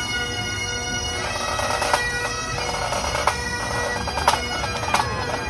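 Bagpipes playing, a steady drone held under the tune, with a few sharp knocks.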